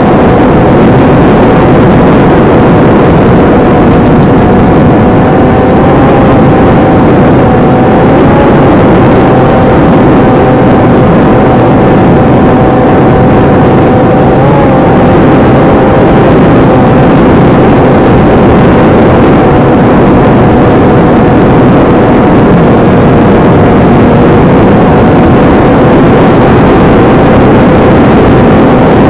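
Versa Wing flying wing's electric motor and propeller running at a steady cruise throttle, a constant whine over loud rushing noise, with brief small rises in pitch about eight and fourteen seconds in.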